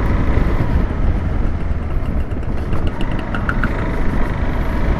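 KTM 390 Adventure X's single-cylinder engine running on the move, under steady low rumble of riding wind on the microphone. A faint short triple beep sounds a little past halfway.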